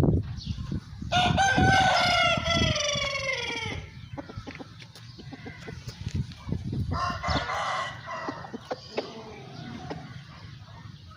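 Aseel roosters crowing: one long, loud crow about a second in that slides down in pitch toward its end, then a second, fainter crow a little past the middle.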